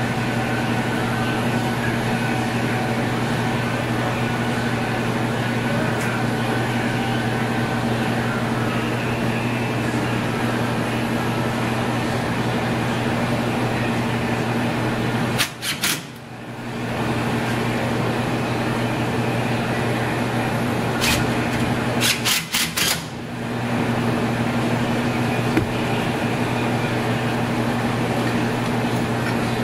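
Steady low electrical hum of the powered vending machine's refrigeration unit running. It is broken twice, about halfway through and again a few seconds later, by a short cluster of sharp clicks, after each of which the hum briefly dips.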